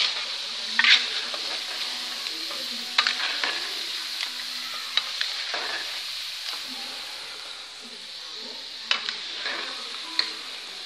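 Potato wedges sizzling in hot oil in a wok, with a perforated metal skimmer scraping and clinking against the pan now and then as the potatoes are scooped out to drain.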